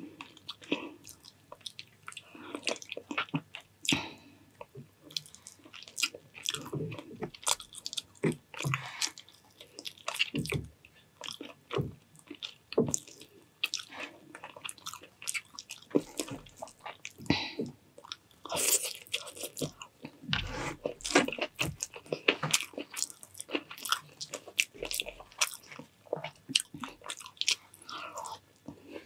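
A person eating close to the microphone, chewing and biting mouthfuls of food, with many short, irregular clicks throughout.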